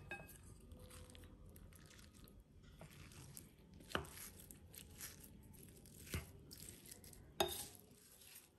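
Wooden spoon mixing a rice bowl in a ceramic bowl: soft scraping and squishing of the food, with a few sharp taps of the spoon against the bowl.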